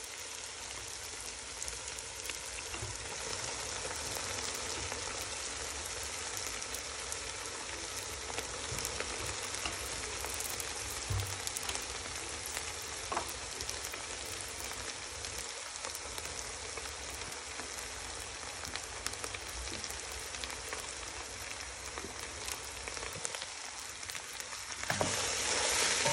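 Njama njama (huckleberry leaves) frying in oil with tomatoes and onions in a metal pot: a steady sizzling hiss scattered with small pops, growing louder about a second before the end.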